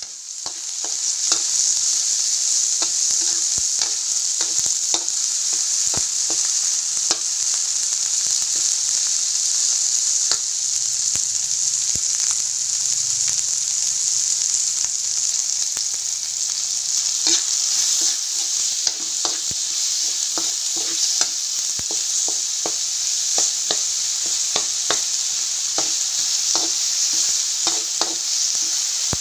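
Chopped tomatoes, ginger and garlic sizzling in a wok, a steady hiss that comes up about a second in. Over it, a spatula stirring the food clicks and scrapes against the pan, more often in the second half.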